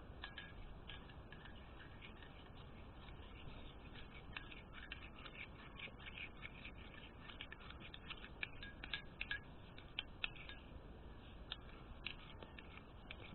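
Faint, irregular scraping and clicking of a spoon working thick liquid soap and detergent in a bowl.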